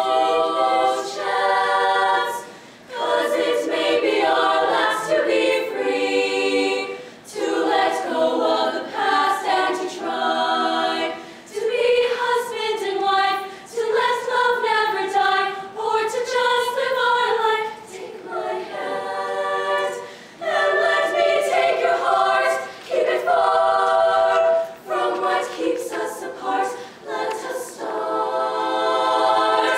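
All-female show choir singing a cappella in several-part harmony, in short phrases with brief breaks between them. Around the middle, one voice carries a wavering melody line above the others.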